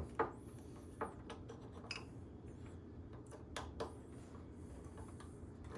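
Faint, scattered small metallic clicks and taps of brake caliper parts and pads being handled, an irregular handful of them over a low steady hum.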